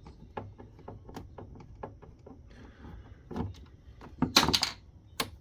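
Removing the screws and back trim piece from a plastic UPS case: a run of light clicks, then a short rasp and, about four seconds in, a louder scrape of plastic parts, ending with one sharp click.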